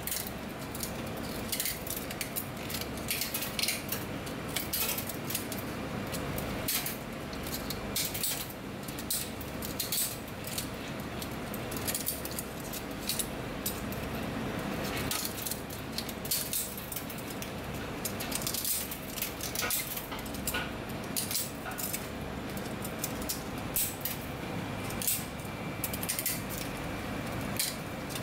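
Metal kitchen shears snipping and cracking the edges of oyster shells: irregular sharp clicks and crunches, with chips of shell clinking into a stainless-steel sink.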